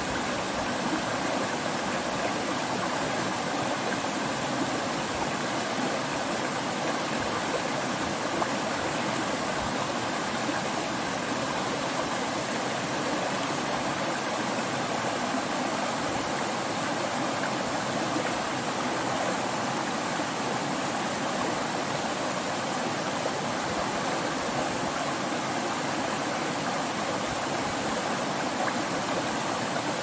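Stream flowing over rock slabs and small cascades: a steady, even rush of water.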